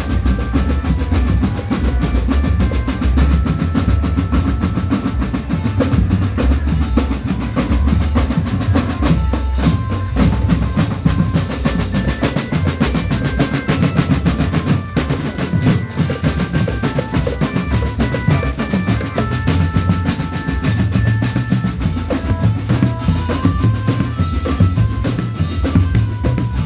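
Marching drum band playing snare drums and bass drums, with a melody of short high notes above the drumming.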